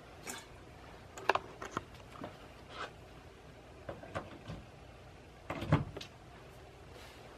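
Scattered sharp clicks and knocks from handling, a dozen or so spread irregularly, with the loudest, a click with a low thud, about five and a half seconds in.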